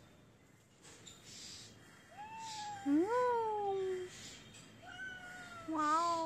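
Domestic cat meowing: a faint meow about two seconds in, then a long loud one that rises and falls in pitch, and another starting near the end.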